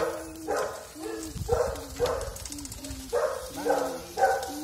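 A dog barking over and over, about two short barks a second.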